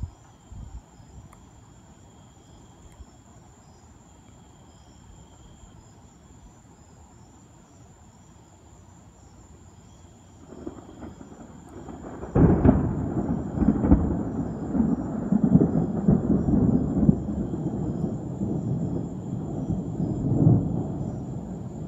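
Thunder: a low rumble builds about halfway through, breaks into a loud crack-like peak and rolls on with several swells for nearly ten seconds. Night insects chirp faintly and steadily underneath.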